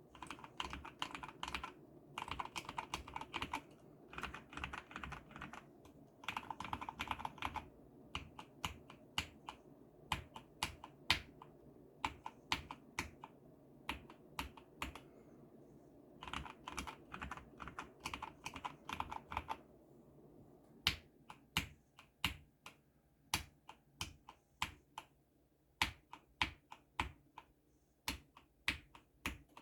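COX CK01 TKL mechanical keyboard with spray-lubed Outemu Red linear switches being typed on: several runs of fast typing, between them single keystrokes about two a second, and in the last third spaced, louder single key presses.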